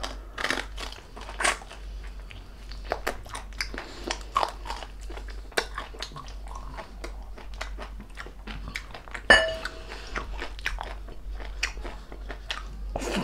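Crunching and chewing of crispy deep-fried pork knuckle (crispy pata) skin, with many sharp crackles throughout. A short ringing knock about nine seconds in.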